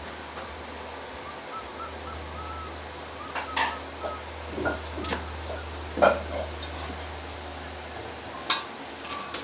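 Several short knocks and clanks of metal tools and parts being handled, the loudest about six seconds in, over a steady low hum. Faint chirps sound in the first few seconds.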